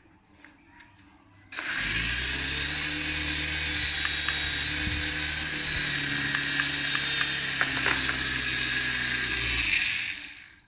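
A small electric motor with gears whirring steadily, starting about a second and a half in and running down near the end, with a few faint clicks; typical of a remote-control toy's motor running.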